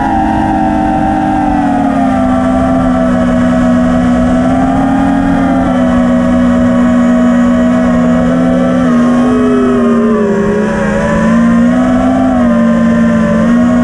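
FPV freestyle quadcopter's electric motors whining close to the onboard camera, several pitches at once that shift with the throttle. The pitch holds fairly steady, drops about ten seconds in, then climbs again near the end.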